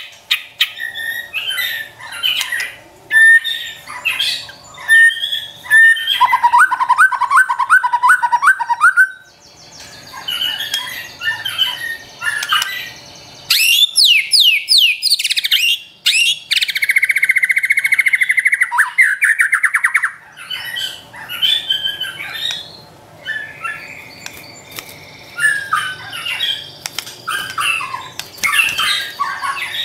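White-rumped shama (murai batu) singing a loud, varied song without pause: clear whistled phrases and harsh chattering notes, a run of about eight repeated notes, then quick falling sweeps and a buzzy trill around the middle.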